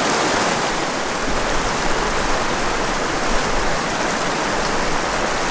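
Small rocky mountain creek rushing steadily over stones through shallow riffles.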